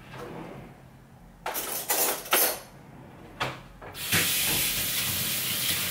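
A few short clatters of cutlery as a spoon is fetched, a click, then a kitchen tap running steadily, starting about four seconds in.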